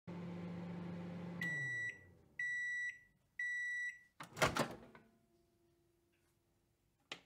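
Microwave oven running with a low hum that drops in pitch and dies away as the cook time ends, then three long beeps about a second apart signalling it is done, followed by the door latch clicking open.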